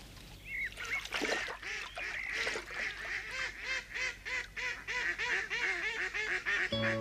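Waterfowl calling, a rapid run of honking calls several a second, with a few higher bird chirps about half a second in. Background music comes in just before the end.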